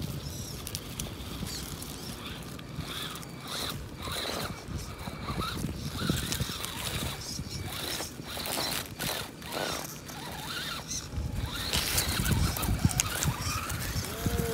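Vaterra Twin Hammers electric RC crawler driving over a dirt trail: its motor and drivetrain whine in spurts as the throttle comes on and off, with tyres and chassis crackling over soil and dry leaves. Loudest as it passes close, about twelve seconds in.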